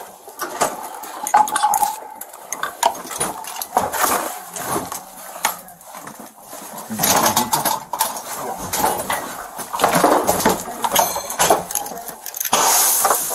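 Police officers' tactical gear rustling and clinking as they move, heard close on a body-worn camera, with scattered knocks and scrapes and louder bursts of handling noise.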